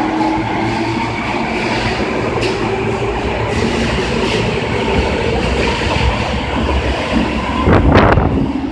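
Osaka subway 22 series electric train pulling out of the station, with steady running rumble and wheels clattering over rail joints. A louder burst of clatter comes near the end.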